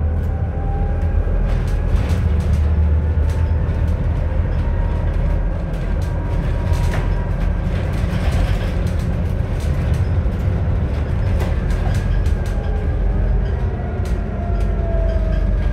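Scania Citywide LF city bus running on natural gas: low drivetrain and road rumble, with a whine that rises in pitch over the first few seconds, holds steady, then falls in the last few seconds, while the body rattles with scattered clicks.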